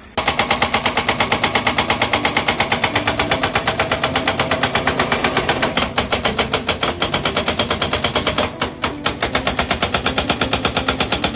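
Excavator-mounted hydraulic breaker hammering rock: a rapid, steady pounding of about eight blows a second. It falters briefly about three-quarters of the way through.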